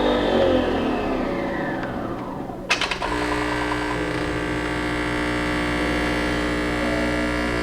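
Nespresso Vertuo Next coffee machine running its first-use rinse cycle: its motor whirs and winds down in pitch, there is a click about three seconds in, and then the machine hums steadily again.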